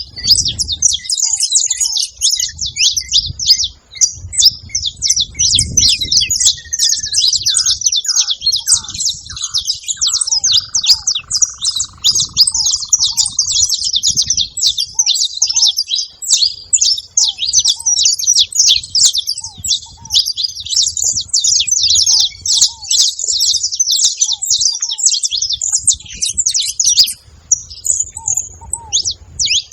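Saffron finch (canário-da-terra) singing a dense, continuous run of high chirps and trills, with ground doves giving short low calls every second or two underneath. A low rumble comes and goes beneath the birds.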